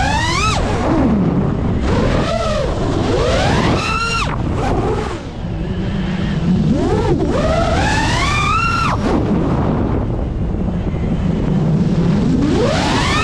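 A 5-inch FPV freestyle quadcopter's motors and propellers whining, recorded from the onboard camera. The pitch sweeps up and drops away again several times as the throttle is punched and cut, over a steady rush of wind.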